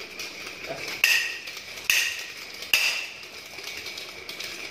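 A pair of metal nunchaku being swung in a drill: three sharp metallic clacks with a brief ring, a little under a second apart, as the sticks and chains snap and strike.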